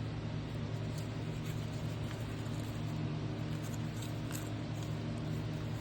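Steady low hum in the room, with a few faint light taps.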